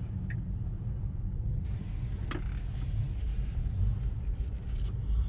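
Low, steady tyre and road rumble of a Tesla Model 3 Performance electric car rolling slowly, heard from inside the car. There is a faint tick near the start and a single sharp click a little over two seconds in.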